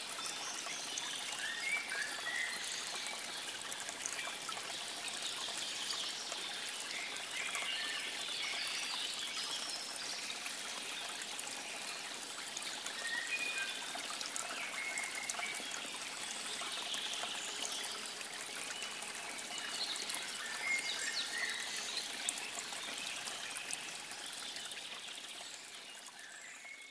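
Water trickling steadily, with short high chirps scattered through it; it fades out near the end.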